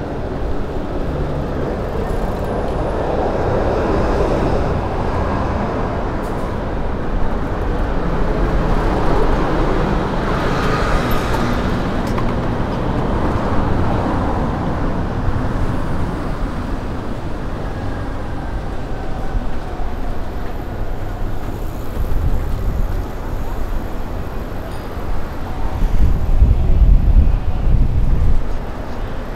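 City street traffic: vehicles passing, with a heavy low rumble from a large vehicle going by near the end.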